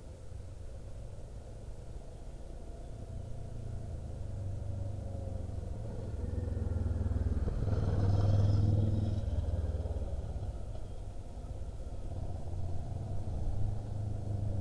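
Motorcycle engine running, swelling to its loudest about eight seconds in, fading, then rising again near the end as the bike comes closer.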